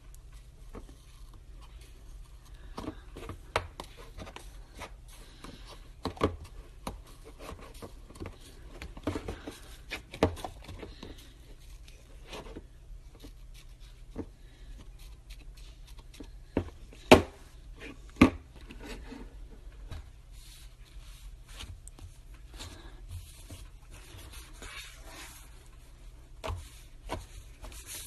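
Hands working slime: irregular sticky clicks, small pops and rubbing, with two louder snaps a little past the middle, over a steady low hum.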